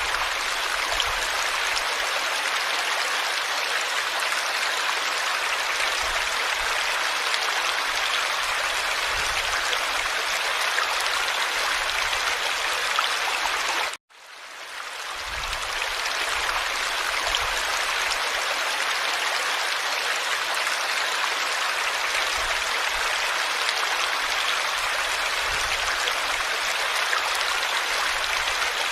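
Steady rush of running water, like a flowing stream. It cuts out abruptly about halfway through and fades back in over a couple of seconds.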